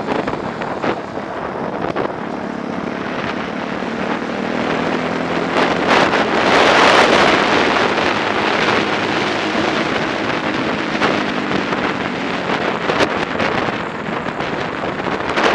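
Onboard sound of a 125 cc four-stroke prototype racing motorcycle's engine running hard at speed, with wind rushing over the microphone, the rush loudest a little past halfway.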